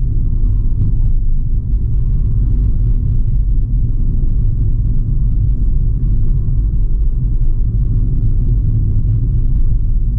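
Steady low rumble of a moving vehicle heard from inside it: engine drone and running noise, unbroken throughout.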